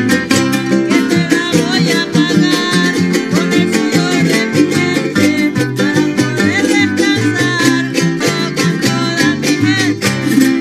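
Son jarocho string ensemble playing: jaranas strummed in a quick, steady rhythm over a plucked bass line from the bumburona, with the guitarra de son (requinto) picking the melody.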